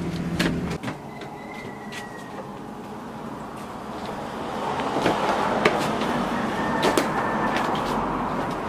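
Footsteps and scattered knocks on old wooden floorboards and stairs as people walk through a wooden house, with a faint creak. A low hum cuts off under a second in.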